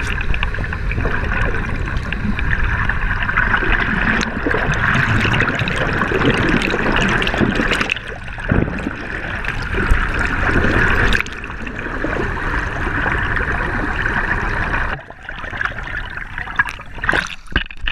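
Water noise heard through a camera held just under the surface of a river: a steady wash and gurgle of moving water. It drops suddenly about fifteen seconds in, and a few knocks come near the end.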